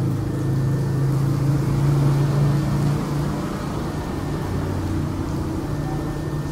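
Diesel locomotive engine of an approaching container freight train, a steady low drone whose main tone drops slightly lower a little past halfway.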